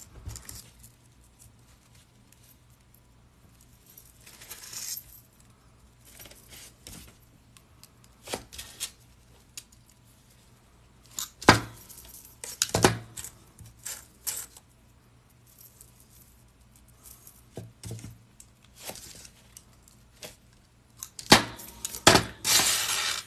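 Small metal jump rings clinking as they are picked from a loose pile and worked onto a chainmaille jelly cube with pliers. Scattered sharp clinks at uneven intervals, with a couple of longer rustling jingles where rings are sifted.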